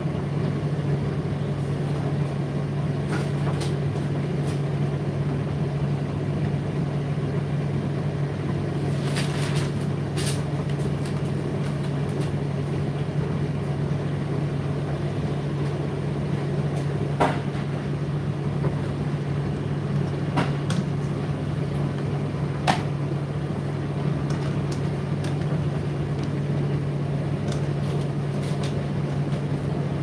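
Indesit IDC8T3 condenser tumble dryer running mid-cycle: a steady motor and fan hum with the rumble of the turning drum. A few short clicks and knocks now and then.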